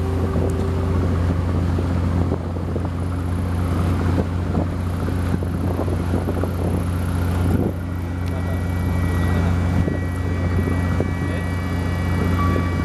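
Sightseeing boat's engine running with a steady low drone, heard from on board, under a haze of wind and water noise.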